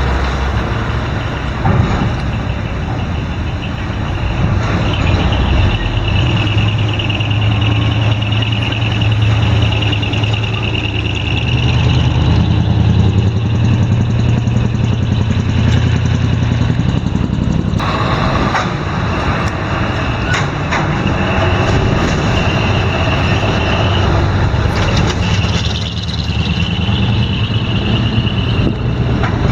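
Heavy trucks' diesel engines running loudly as they drive off a ferry, with a high steady whine that comes and goes. The sound shifts abruptly about eighteen seconds in.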